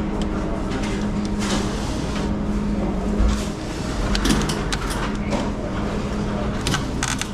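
Steady machine hum with a low tone, overlaid by scattered clicks, knocks and scrapes of handling.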